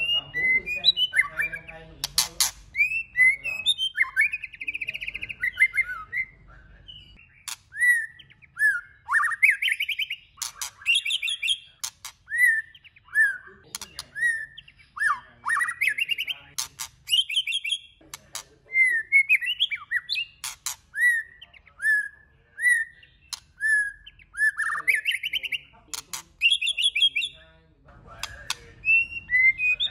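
White-rumped shama singing a varied song of short whistled phrases that slur up and down, one after another with brief gaps, mixed with sharp clicking notes.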